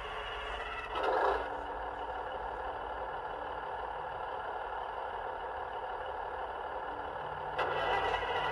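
Class 150 DMU diesel sound file playing on a model train's DCC sound decoder, running its cold start with compressor speed-up. It gives a steady mechanical noise with two short, louder bursts, one about a second in and one near the end.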